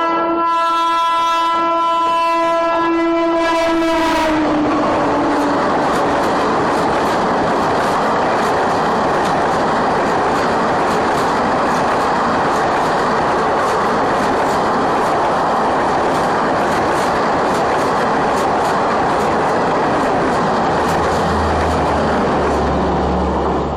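A WAP-5 electric locomotive's horn sounds a long blast that drops in pitch as the locomotive passes and cuts off about four seconds in. Then the express's coaches rush past at speed with rapid clicks of wheels over the rail joints for about twenty seconds, beginning to fade near the end.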